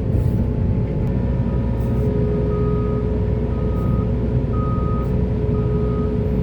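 Heavy diesel construction machinery running steadily, with a reversing alarm beeping about once a second from about a second and a half in.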